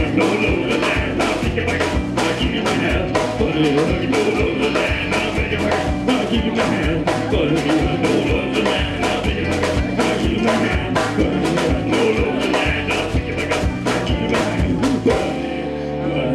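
Live folk-rock band playing: strummed acoustic guitars and a steady drum-kit beat with singing. The drum beat drops out about a second before the end.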